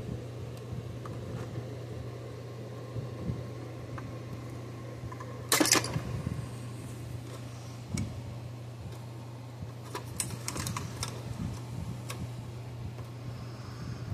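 Small clicks and taps of needle-nose pliers and a soldering iron working at a circuit board while component leads are pulled through the heated solder joints, with one louder clatter about five and a half seconds in and a run of light clicks around ten seconds in. A steady low hum runs underneath.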